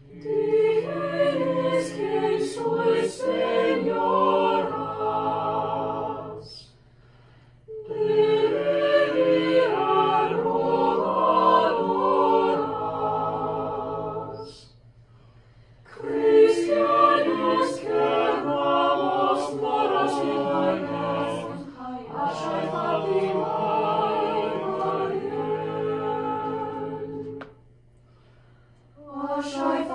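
Small mixed chamber choir singing in parts, in sustained chords. The singing comes in phrases broken by short pauses, three times.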